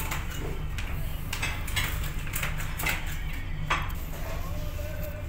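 Restaurant clatter: dishes and cutlery clinking in scattered knocks, over a steady low hum and faint voices.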